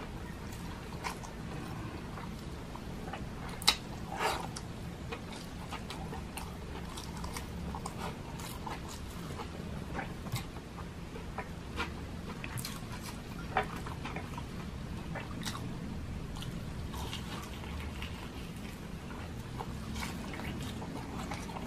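Close-up eating sounds of a person eating fried milkfish and rice with the hands: chewing, wet mouth clicks and fingers picking at the food. These come as scattered sharp clicks over a low steady hum.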